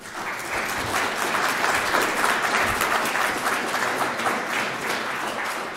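Audience applauding, a dense patter of many hands clapping that begins at once and dies down near the end.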